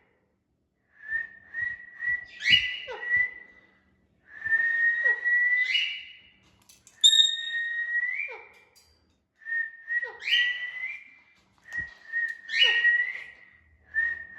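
Pet parakeet whistling a learned phrase over and over, about six times: each phrase is a whistled tone that steps upward, then ends in a quick downward swoop.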